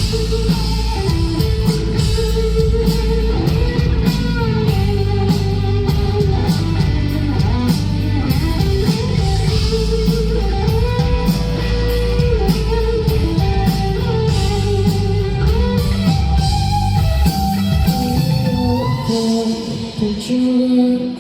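Live rock band playing a loud instrumental passage: electric guitar carrying a melody over bass and drums. Near the end the cymbals and drums thin out, leading back into the sung verse.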